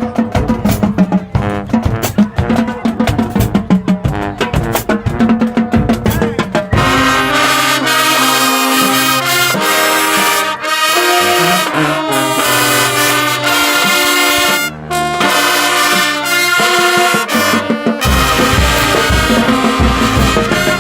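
Marching band playing: drums carry a sharp, driving beat for the first several seconds, then the brass section of trumpets and trombones comes in with loud held chords, and a heavy low beat rejoins near the end.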